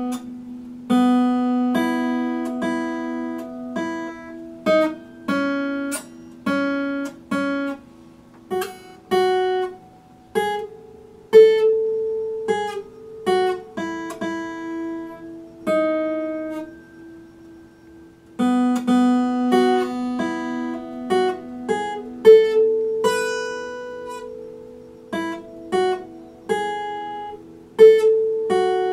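Epiphone acoustic guitar picked in single notes, a slow melody of ringing plucked notes with a short pause a little past halfway.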